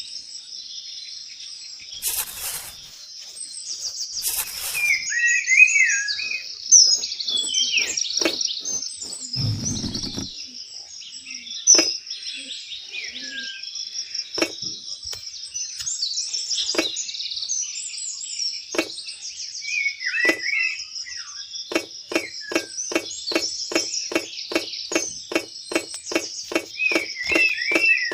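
Small birds chirping over a steady high hiss. A few scattered light taps give way, about three-quarters of the way through, to a regular run of light taps, two or three a second.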